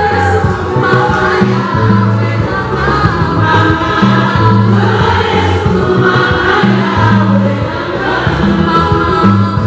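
Women's gospel choir singing through microphones, lead voices over the group, with instrumental backing carrying a repeating bass line.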